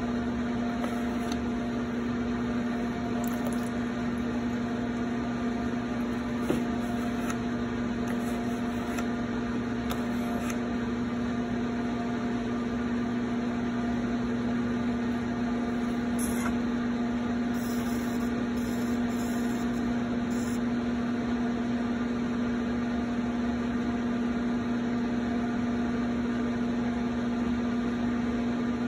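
Electric potter's wheel humming steadily as it spins under a pot being thrown, with one light click about six and a half seconds in.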